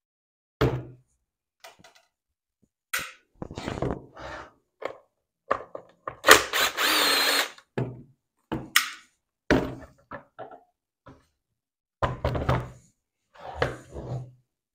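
DeWalt cordless impact driver running in several short bursts, backing Torx screws out of a Ryobi trimmer's plastic engine cover, with knocks of the tool and parts against the bench between bursts.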